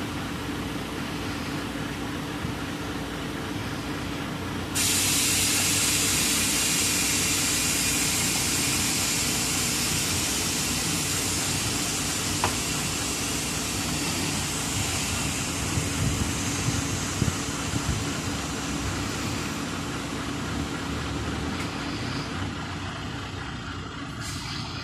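Tipper semi-trailer truck running with a steady hum while its tipping body is raised hydraulically. About five seconds in, a loud hiss starts abruptly and slowly fades over the rest of the tip.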